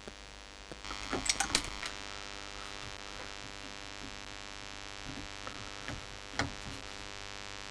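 Small metal clicks and scrapes of a screw and nut being worked loose on a valve radio's metal chassis, with a quick cluster of clicks about a second in and a few single clicks later, over a steady mains hum.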